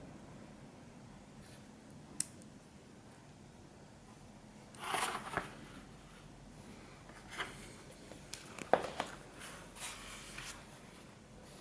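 Hands handling small metal diesel-injector parts over cardboard: a few light clicks and brief rustles, the loudest a sharp click about nine seconds in.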